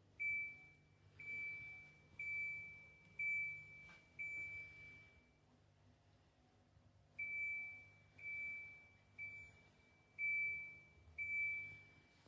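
Electronic beeping from a DMD mini countertop dishwasher: two runs of five single-pitched beeps, about one a second, each fading out, with a pause of about two seconds between the runs.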